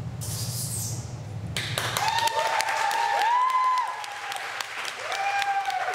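The music dies away in the first two seconds as an audience breaks into applause, clapping along with several long whooping cheers that rise and fall in pitch.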